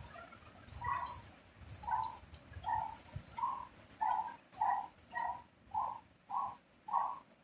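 A dog barking over and over: about ten short barks from about a second in, coming a little faster toward the end, with a faint hiss of rain and wind beneath.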